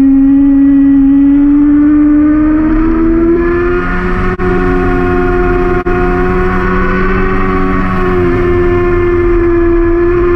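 Yamaha R6's 600 cc inline-four engine running hard at high revs, heard on board at track speed, with a steady high engine note that rises slightly over the first few seconds and then holds. The sound drops out for an instant twice, about four and six seconds in.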